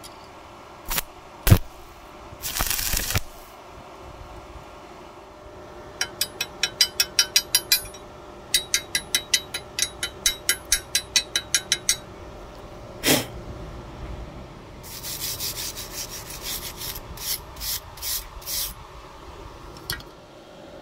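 Sharp knocks and scrapes on steel. Two fast, even runs of taps come first, about six a second and then about four a second. A series of scraping strokes follows near the end.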